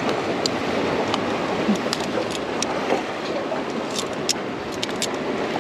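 Steady rush of surf at the shoreline, with scattered light clicks and knocks from ceviche being stirred in a bowl with a makeshift utensil instead of a spoon.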